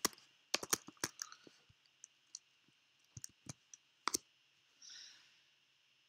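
Computer keyboard keys clicking as code is typed: a quick run of keystrokes in the first second, then scattered single and double clicks up to about four seconds in. A short soft hiss comes about five seconds in.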